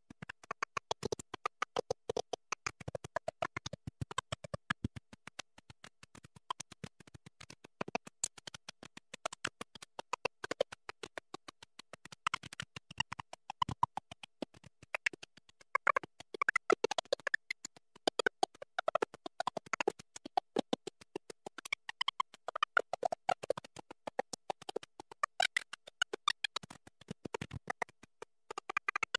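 Stuttering, chopped-up glitch audio: the sound is cut into very short fragments many times a second, like a scratched or stuttering recording, used as a censoring effect.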